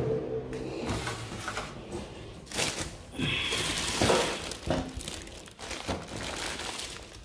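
Clear plastic bags packed with rice and milk boxes rustling and crinkling as they are handled, with a few soft knocks.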